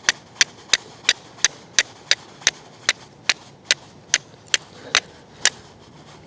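Flint rock striking the spine of a high-carbon-steel Mora knife to throw sparks onto char cloth. About fifteen sharp, evenly spaced strikes come at roughly three a second and stop about five and a half seconds in.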